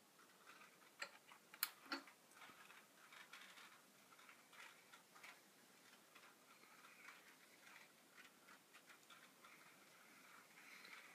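Faint, irregular clicking and ticking of HO-scale model trains running on the layout's track, with three sharper clicks about one to two seconds in.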